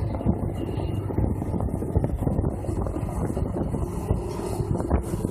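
Amphibious AT-350 excavator's diesel engine running steadily as it digs with its long-reach arm, with wind rumbling and buffeting on the microphone.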